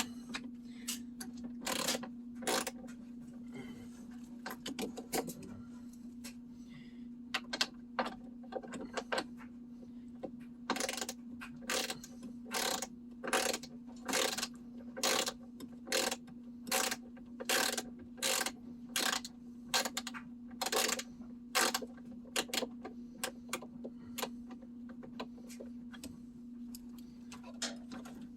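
Ratchet wrench clicking in repeated short strokes, about one and a half a second through the middle stretch, as screws are backed out. A steady low hum runs underneath.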